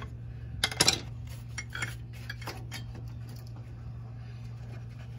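Metal clanks and clicks of a screwdriver prying a brake caliper loose from its rotor, with a cluster of loud clanks about a second in and a few lighter clicks after. A steady low hum runs underneath.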